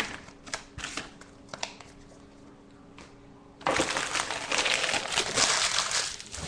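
Trading-card pack's foil wrapper crinkling loudly for about two and a half seconds, starting a little past halfway. Before it, a few light clicks and taps of cards being handled.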